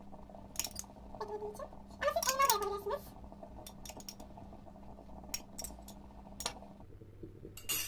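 A metal spoon tapping and clinking against a ceramic bowl and a glass dish while chopped fruit is spooned into the bowl: a scattered series of light, sharp clicks.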